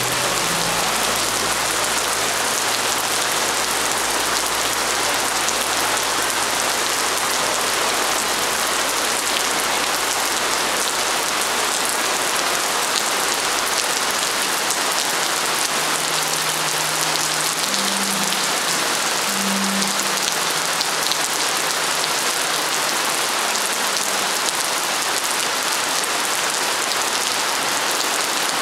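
Heavy rain pouring steadily onto wet stone paving: a dense, even hiss with no let-up.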